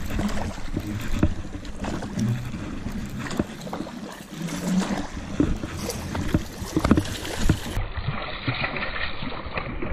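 Rumbling wind and handling noise on a body-worn camera's microphone, with scattered clicks and knocks as a baitcasting reel is cast and cranked.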